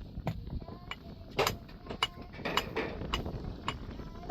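A series of sharp knocks and clinks of hard objects striking, at uneven intervals.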